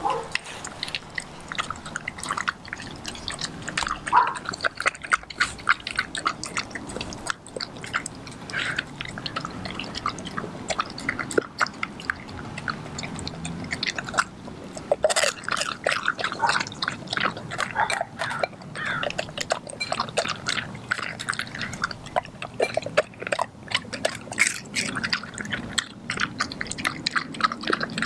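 Senior Kelpie–German Shepherd mix eating raw meat from a ceramic bowl: a steady run of wet smacks, chewing and licks as her tongue laps the bowl, with one louder click about halfway through.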